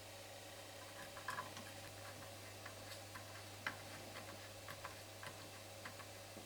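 Faint, irregular small clicks and ticks of small screws being nipped up while a control unit's casing is put back together, over a steady low hum.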